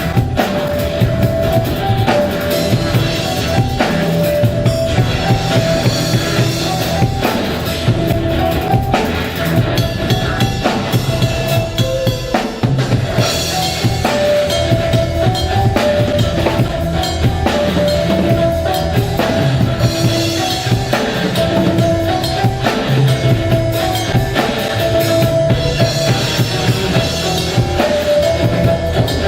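Drum kit played with a steady beat, kick and snare prominent, over music with a short repeating melody and bass line.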